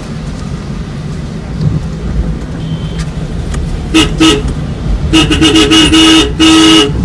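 Car horn honking: two short toots about four seconds in, then a quick run of toots and one longer blast near the end, over the low rumble of the car driving.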